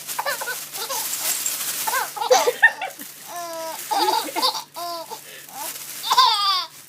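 Baby laughing in a series of short, repeated peals while a plastic bag crinkles.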